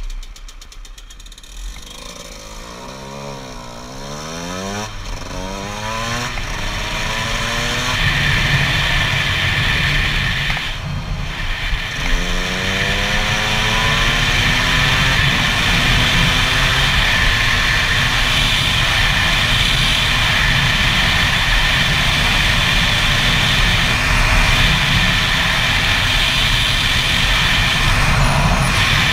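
2009 Gas Gas EC SMR 125 two-stroke supermoto engine revving up and dropping back several times as it pulls away and shifts up. It then runs at a steady high-revving buzz at road speed, with wind rush over the helmet camera.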